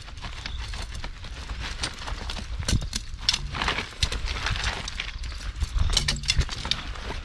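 Collapsible fishing keep net being handled and folded, its metal hoops clinking and knocking together and the mesh rustling, in irregular clusters of clicks.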